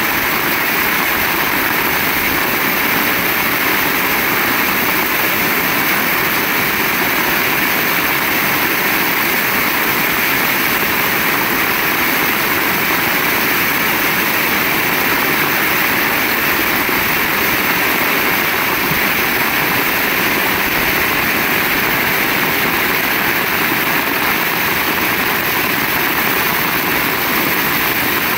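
Heavy rain falling in a steady, unbroken downpour.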